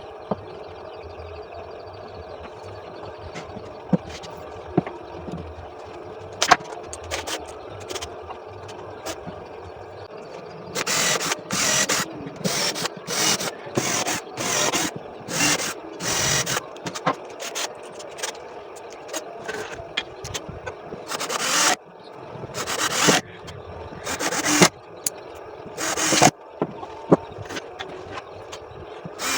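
A steady hum with a few scattered knocks. About eleven seconds in, a run of short scraping strokes on wood begins, roughly one to two a second with irregular pauses, like hand sawing or sanding while a table frame is being built.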